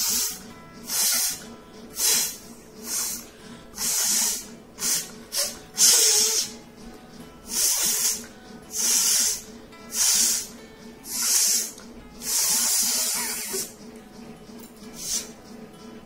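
A person forcing air hard through the nose again and again, a sharp hissing snort about once a second, more than a dozen in all, one of them longer near the end.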